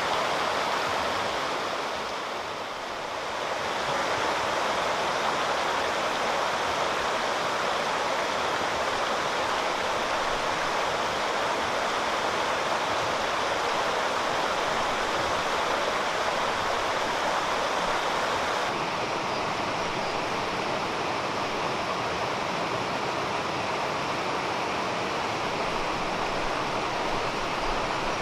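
Waterfall and mountain stream water rushing steadily. The rush dips briefly about three seconds in and turns a little duller about two-thirds of the way through.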